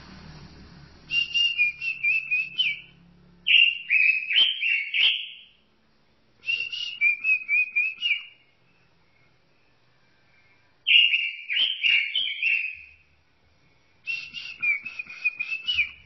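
Pekin robin (red-billed leiothrix) singing: five fast whistled phrases of about two seconds each, the notes wobbling quickly in pitch, with short pauses between phrases.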